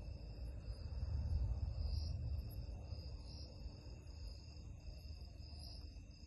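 Night insect chorus of crickets: a steady high trilling in several pitches, one part swelling and fading about once a second. Under it runs a low rumble, loudest a second or two in.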